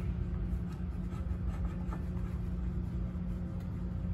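Faint scraping and a few light ticks as a gloved hand turns a tightening knob on the metal bracket clamping an oxygen cylinder, over a steady low hum.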